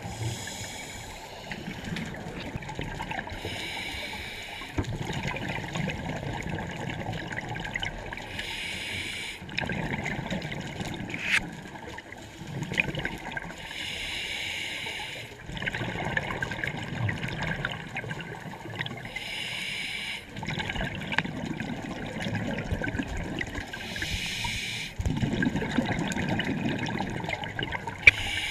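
Scuba diver breathing through a regulator underwater: a short hiss about every four to five seconds, each followed by a longer low bubbling rumble as the breath is let out.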